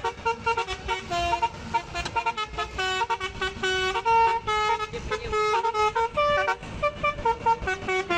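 Bus 'telolet basuri' musical horn playing a fast tune of short, stepped notes one after another.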